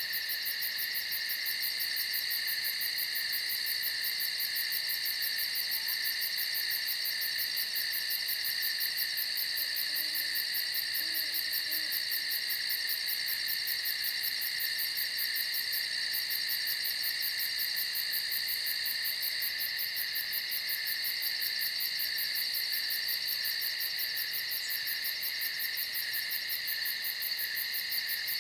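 A steady chorus of night insects, crickets among them, trilling in several high-pitched bands with a fast, even pulse. It goes on unchanged.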